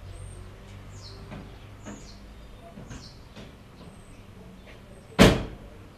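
Birds chirping faintly, with short high calls scattered throughout. About five seconds in, one loud, sudden noise cuts in and fades within half a second.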